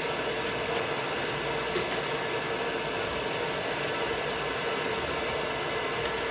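Hair dryer running steadily on a Yorkshire terrier's coat: an even rush of air with a steady hum in it.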